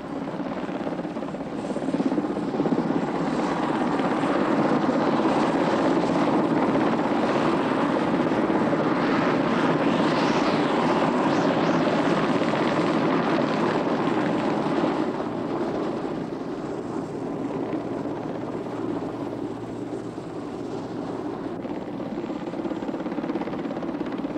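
Helicopter engine and rotor running steadily in flight, a continuous rushing drone that grows louder a couple of seconds in and eases off somewhat after about fifteen seconds.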